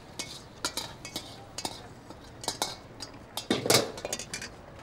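Metal spatula clanking and scraping against a wok, with irregular clinks of cookware, as a cooked dish is scooped out of the wok. One heavier clank comes a little after three and a half seconds in.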